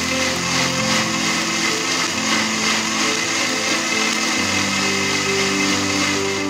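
Personal blender motor running steadily at high speed, pureeing tomatoes, almonds and garlic into a smooth paste, with soft background music underneath.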